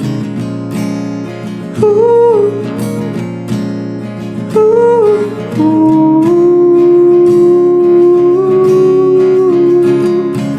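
Song with steady acoustic guitar strumming under a melody line that wavers briefly twice, then settles into one long held note that steps up and back down.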